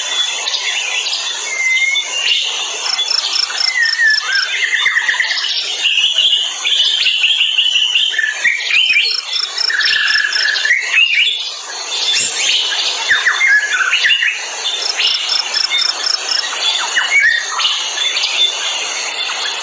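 Tropical forest ambience: many birds calling and chirping in short, bending phrases over a dense, steady chorus of insects. A high, evenly pulsing insect trill comes in and fades out three or four times.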